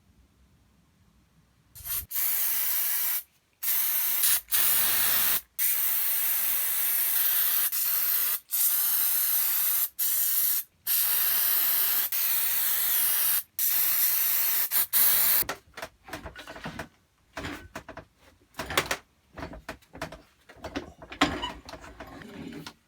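Pressurized spray hissing in long, loud bursts with brief breaks, then shorter, intermittent bursts over the last several seconds.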